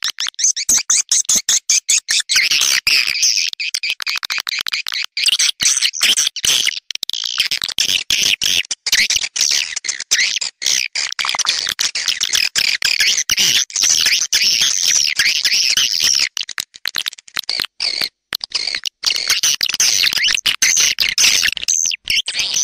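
Recorded swiftlet calls: a dense, continuous high-pitched twittering and chirping of many birds, cut by frequent brief gaps. This is the kind of 'calling sound' played to lure swiftlets into a nest house.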